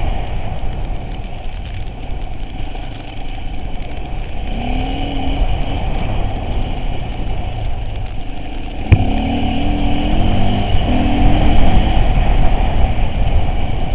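Off-road vehicle engine running with a continuous low rumble, its pitch shifting now and then, and a single sharp knock about nine seconds in.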